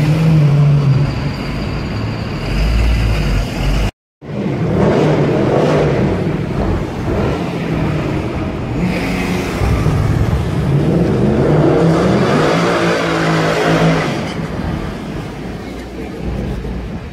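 Mercedes-Benz C63 AMG coupé's V8 revving as the car moves slowly along the street, its engine note rising and falling several times before fading near the end. Before an abrupt cut a few seconds in, another sports car's engine is heard pulling away in traffic.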